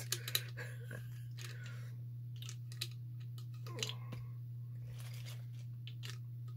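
A few sharp plastic clicks and crackles as the blue plastic cap of a Ramune marble-soda bottle is worked apart by hand: a couple near the start, one about 3 s in and a small cluster about 4 s in, over a steady low hum.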